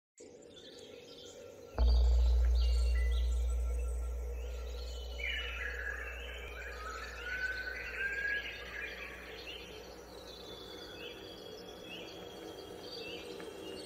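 Jungle ambience of chirping bird calls and insect sounds over a song's opening. A very deep bass note hits suddenly about two seconds in and slowly fades under steady low tones.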